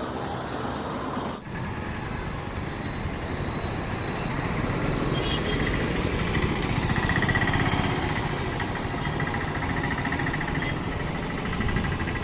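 Busy road traffic at a roundabout: vehicle engines running in a steady rumble, with a sustained high-pitched tone through the middle that swells loudest about halfway.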